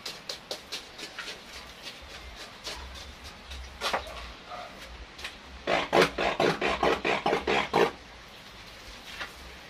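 Handheld trigger spray bottle squirting water in quick repeated pumps, about four a second, misting a bonsai. After a pause there is a louder, faster run of about ten short squirts.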